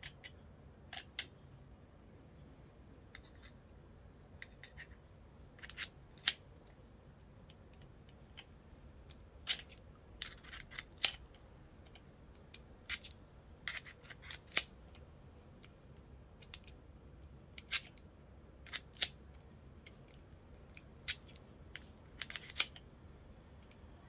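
Irregular sharp clicks and snaps of a quick-release camera mount and phone clamp being handled and fitted together, with about a dozen louder clicks spread unevenly among fainter ones.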